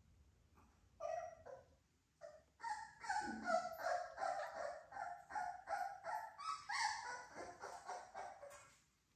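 Three-week-old American Bully puppies yipping and squealing: one short call about a second in, then a fast run of high little yips, several a second, from about two and a half seconds in until shortly before the end.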